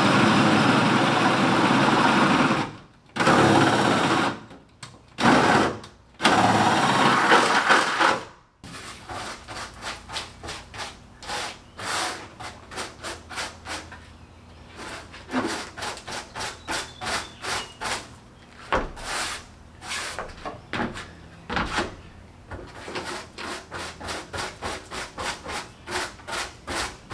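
Power drill running in several long bursts for the first eight seconds or so, boring holes out to half an inch through the bare metal floor of a pickup bed. Then a hand brush sweeping the bed floor into a dustpan in quick, short strokes, much quieter than the drill.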